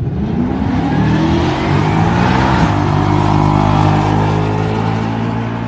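A car engine accelerating hard: its pitch climbs, steps down at a gear change about two and a half seconds in, then holds steady.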